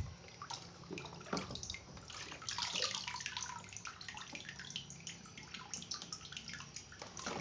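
Water splashing and dripping in a plastic tub: irregular small drips and trickles.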